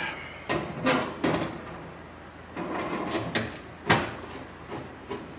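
Scattered light knocks and clicks of hands working at the metal front of a residential breaker panel, with one sharper click about four seconds in.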